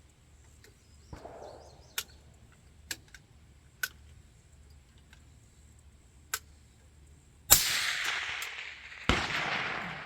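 Two loud rifle shots close by, about a second and a half apart near the end, each a sharp crack with a long echoing tail. Several fainter, sharper shots from other rifles on the range come earlier.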